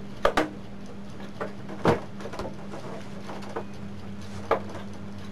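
Short plastic knocks and clicks as hands handle the back casing of a CRT television: a quick pair at the start, the loudest about two seconds in, another near the end. A steady low hum runs underneath.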